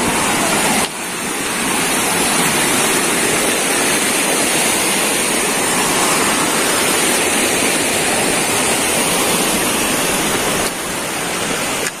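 Mountain stream rushing over rocks, a steady loud wash of water noise that drops slightly in level near the end.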